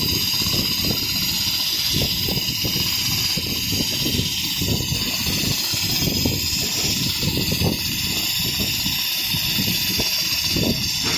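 Richpeace non-stop automatic sewing machine running, its sewing head stitching a quilted pattern: a steady high hiss over an uneven low mechanical rumble.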